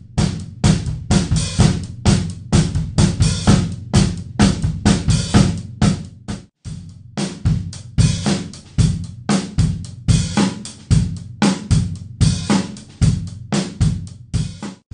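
A drum kit played on its own, with kick drum, snare, hi-hat and Sabian HHX cymbals, in a steady groove with a short break about six and a half seconds in. It stops at the very end.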